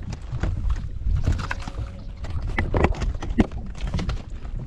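A largemouth bass swung aboard and flopping on the boat's deck: a run of irregular knocks and slaps over a steady low rumble.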